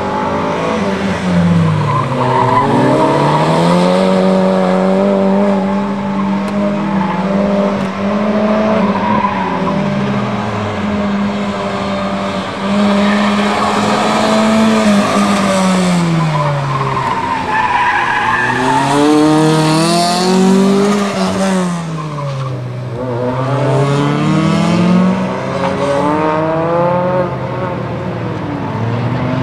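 Autocross car's engine running hard through a cone course, held at steady revs for several seconds and then dropping and climbing again several times as the driver lifts and gets back on the throttle, with tyre squeal in the turns.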